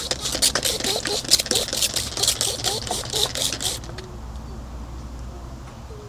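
Rapid scratchy scrubbing strokes on a surface for about four seconds, then they stop, leaving a low hum.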